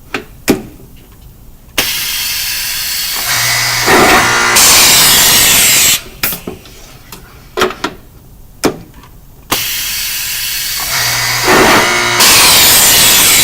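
A power drill boring holes in drawer back panels, run twice: each time the motor spins up, then turns much louder for about two seconds as it cuts, and stops. Short clicks and knocks come between the two runs.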